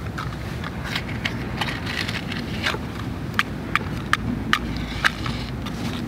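Steady low outdoor rumble with about half a dozen sharp, scattered clicks and crackles.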